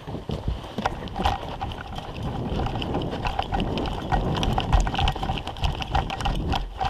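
Footsteps crunching through snow at a quick pace, with gear and a rifle rattling and wind buffeting the microphone, as a player moves across open ground.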